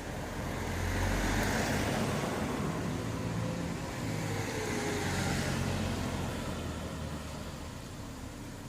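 1968 Triumph TR6 Trophy motorcycle's 650 cc parallel-twin engine running. It swells louder twice, with a change in pitch in between, then fades away near the end.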